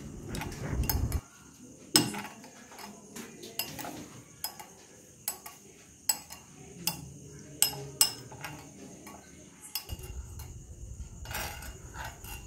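A steel spoon stirring a thin sauce in a cut-glass bowl, clinking against the glass in irregular light taps.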